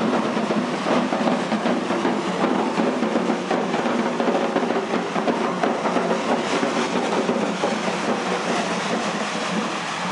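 A wheeled metal hand cart loaded with a large drum, pushed at a run over asphalt: its wheels and frame rattle and scrape against the pavement in a continuous clatter.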